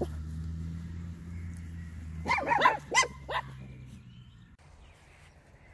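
A small dog, a papillon, gives a quick run of about five short, high yaps a little over two seconds in. Under it there is a low steady hum that fades out about four seconds in.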